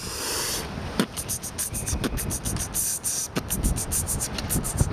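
A person beatboxing with the mouth: a short hiss, then a quick run of hissing hi-hat-like sounds, several a second, with a few sharper clicks among them.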